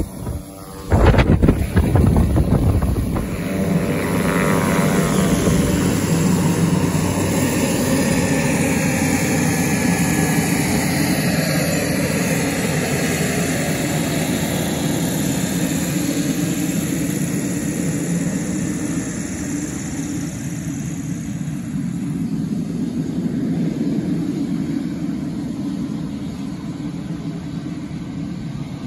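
Propeller plane's engines running as it taxis away down the runway, a steady drone that eases slowly as it moves off. About a second in, a loud gusty rush of air hits the microphone for a couple of seconds.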